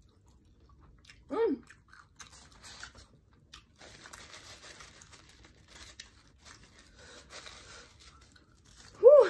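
A paper napkin rustling and crinkling as it is unfolded and handled, from about four seconds in until about eight, over faint chewing clicks. A short hummed "mm" comes about a second in, and a louder one near the end.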